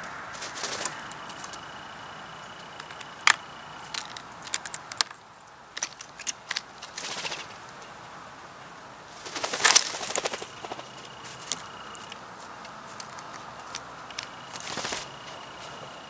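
Small birds' wings fluttering in several short bursts as they fly to and from a seed feeder, the loudest about ten seconds in, with scattered sharp clicks between them.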